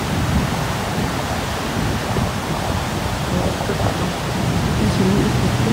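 High floodwater pouring over a low dam and churning in the foaming whitewater below: a steady rushing roar.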